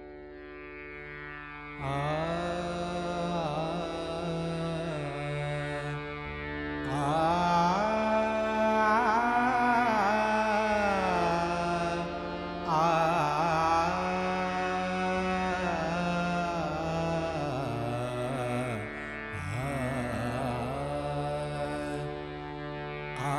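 Opening of a classical Marathi abhang bhajan: a male singer's wordless alaap in four long phrases, gliding smoothly up and down, over a steady harmonium drone.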